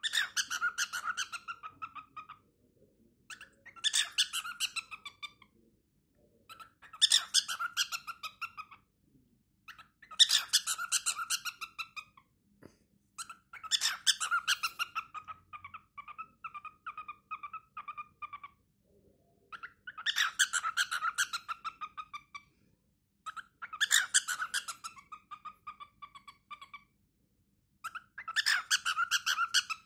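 Six-month-old cockatiel singing: about eight short phrases of rapid, chattering high notes, each two to three seconds long, separated by brief pauses.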